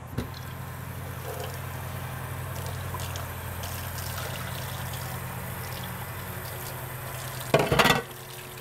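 Kitchen tap running into a stainless steel sink while an emptied tin can is rinsed out under the stream, water splashing steadily. A steady low hum sits underneath, and a brief louder knock comes near the end.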